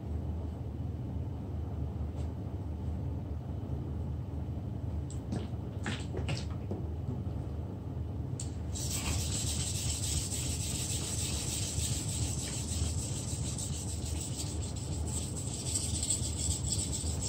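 A 30.5 cm fish processing knife's blade scraping on a whetstone in rapid strokes, starting about nine seconds in after a few light clicks, over a steady low hum.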